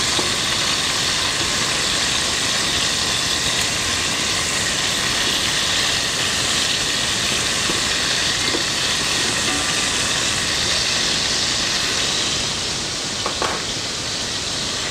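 Chicken pieces sizzling in hot oil as they brown in a pot, a steady hiss while they are turned with tongs. There is a light knock near the end.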